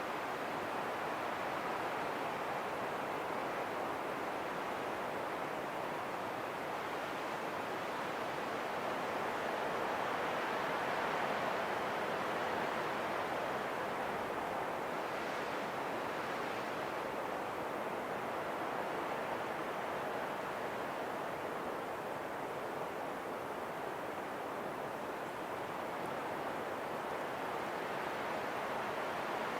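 Steady rushing wind, an even noise that swells and eases gently without any gusting breaks.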